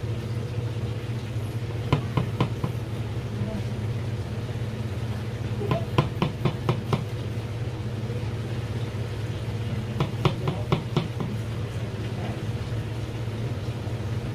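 Long slicing knife tapping against a cutting board as a cutlassfish fillet is cut into sashimi slices, in three short runs of quick taps over a steady low hum.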